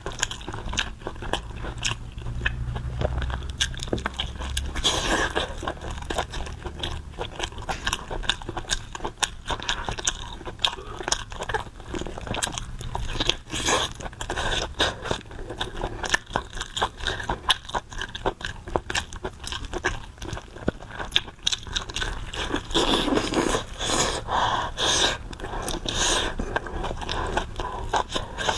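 Close-miked biting and chewing of a large pig tongue: a dense, irregular run of small crunches and mouth clicks.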